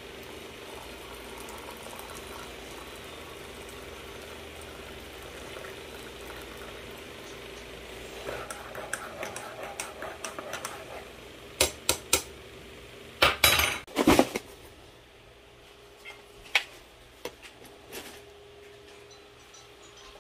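Hot water poured steadily from an electric kettle into a ceramic mug, then a metal spoon stirring the drink and clinking against the mug, with a few louder, sharper clinks about two thirds of the way in.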